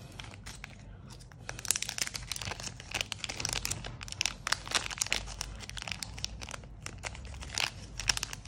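Small clear plastic zip-lock bag crinkling and crackling as fingers handle and work at it. The crinkling starts about a second in and comes in irregular bursts.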